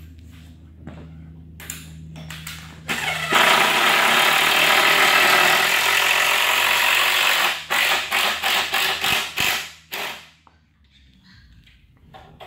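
Cordless drill driving a screw into a timber workbench frame: one long, steady run of about four seconds starting a few seconds in, then several short bursts as the screw is driven home.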